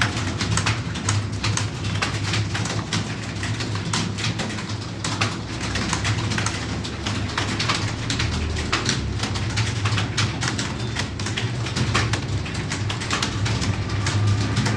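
Rapid keystrokes on a computer keyboard during Hindi typing practice, a steady run of clicks several a second, over a low pulsing hum.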